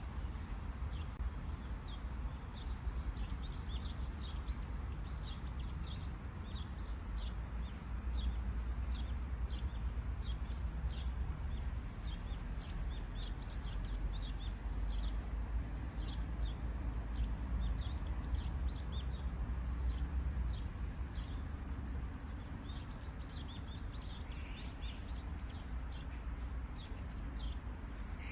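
Small birds chirping in short, high notes, a couple a second, fewer after about twenty seconds, over a steady low rumble.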